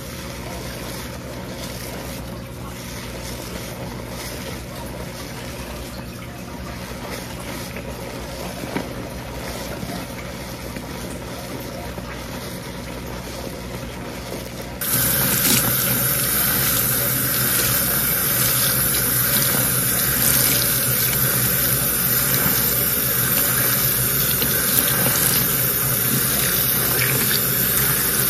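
Hands working shampoo lather through long wet hair, a soft squishing over a steady low hum. About halfway through, a sink tap is turned on and water runs steadily, rinsing the hair.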